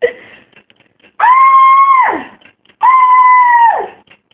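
Domestic cat yowling: two long drawn-out calls, each held at one pitch and then falling away at the end.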